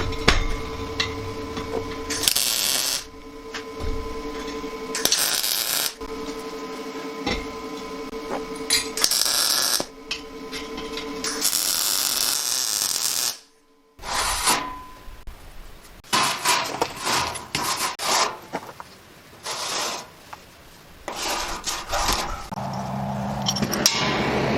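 Metalworking power tools cutting and fabricating steel tubing: a steady machine hum with several long, loud hissing passes, then after a brief cut, a run of short clanks and rasps, with a low motor drone near the end.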